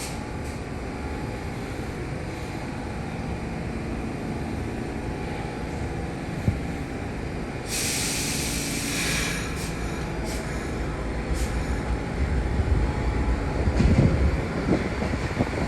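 New York City subway train running through the station with a steady rumble. There is a burst of hiss about eight seconds in, and the rumble grows louder near the end.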